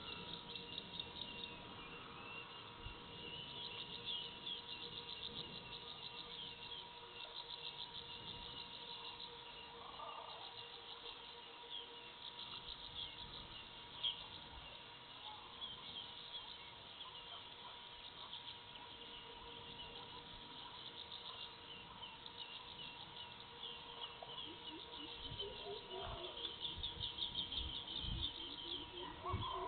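Dusk forest ambience: a continuous chorus of rapid high chirping and trilling from insects and birds. A faint steady hum lies underneath. Near the end, lower bird calls grow louder.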